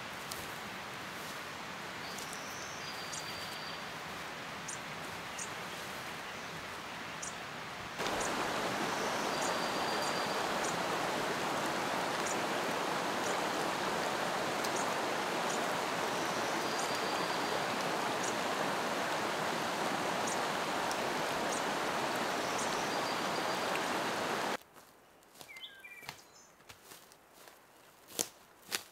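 Steady rush of shallow water over rocks in a mountain stream, louder from about a third of the way in, with short high bird chirps over it. Near the end the water sound stops and footsteps on the forest floor take over.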